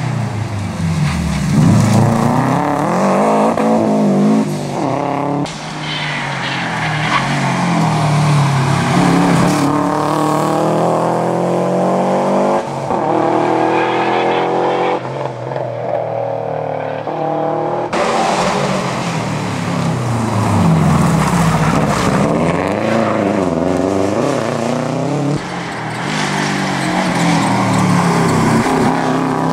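Subaru Impreza rally cars' flat-four engines revving hard through the gears as several cars in turn come through the bends and pass, the engine pitch repeatedly climbing, dropping at each gear change and lifting off.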